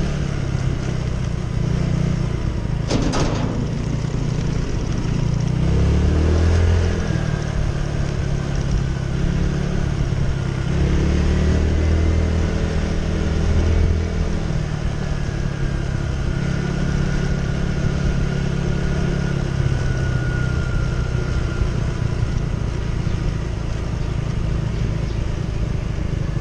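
Small automatic scooter's engine running under the rider, speeding up twice along the road, over a steady rush of wind and road noise. A single sharp knock about three seconds in.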